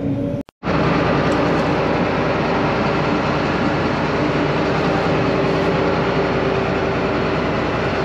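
John Deere 9500 combine running close by: steady engine and machinery noise with a constant hum, broken by a brief dropout about half a second in.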